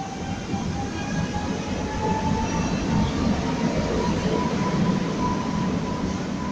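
White-and-red electric multiple unit passing close along the platform and pulling away, its wheels on the rails making a heavy rumble that is loudest a few seconds in. A steady electric whine rises slowly in pitch, as from traction motors gaining speed.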